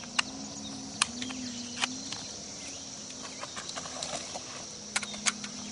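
Scattered sharp clicks and taps, about five, over a steady high-pitched insect buzz and a faint low hum.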